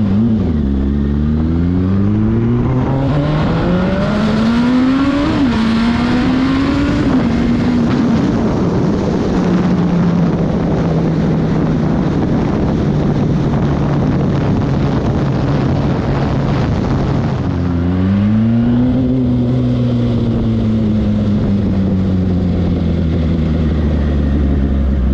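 Turbocharged Suzuki Hayabusa inline-four heard while riding: the revs climb over the first few seconds with a gear change about five seconds in, hold steady at cruise, then climb again near the end and ease off.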